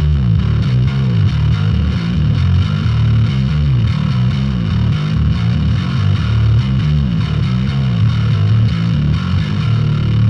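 Bass guitar playing a busy riff of quickly changing low notes, heard through a close-miked cabinet impulse response truncated to about 1,000 samples.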